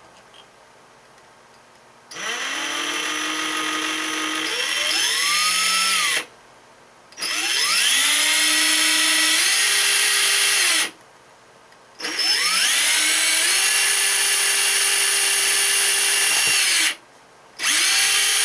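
DeWalt lithium-ion cordless drill with a 1/16-inch bit drilling a roll-pin hole at a marked spot, run in four goes of a few seconds each. Each go starts with the motor whine rising as it speeds up, then holds steady.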